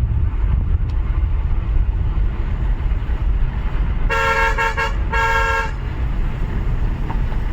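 A vehicle horn sounds two blasts of just under a second each, about four seconds in, over the steady low rumble of a car driving on the road.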